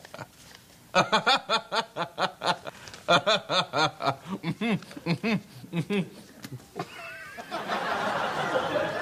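A man laughing hard in quick, repeated bursts, several a second, breaking up in the middle of a take. Near the end a steadier wash of noise takes over.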